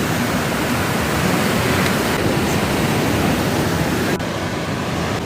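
Steady rush of fast-flowing river water, an even noise that eases a little in its upper range about four seconds in.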